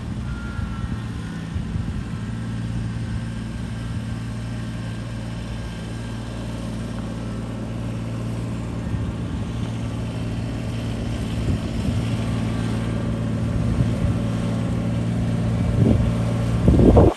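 Kubota backhoe loader's diesel engine running steadily, growing gradually louder, with a brief louder surge just before the end.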